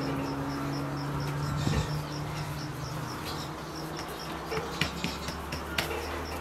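An insect chirping steadily, about four short high chirps a second. A low steady buzz fades out about halfway through. Faint taps and pats from hands pressing dough flat on a metal sheet come in the second half.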